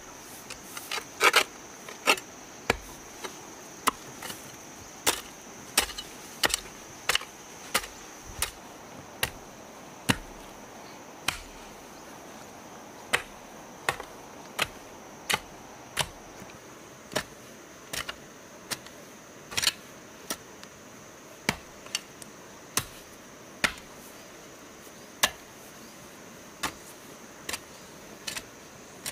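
Repeated chopping strikes, about one a second at an uneven pace, each a sharp knock, over a steady high-pitched insect drone.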